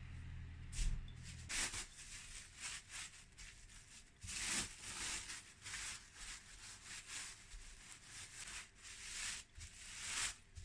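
Irregular rustling and rubbing: a string of short scraping noises of uneven length. A low hum cuts off about a second and a half in.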